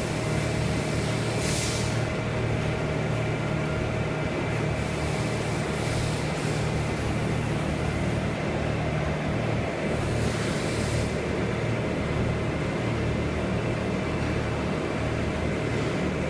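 Steady low mechanical hum under a constant hiss, with a few faint steady whining tones; two short hissing bursts about a second and a half in and about ten seconds in.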